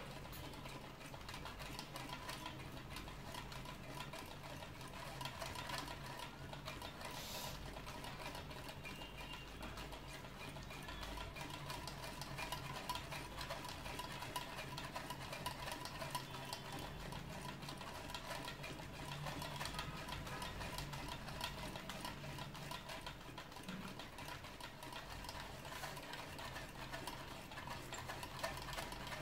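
A homemade drink-can Stirling engine running steadily, its wire crankshaft and CD flywheel turning with a fast, light mechanical ticking over a steady low hum.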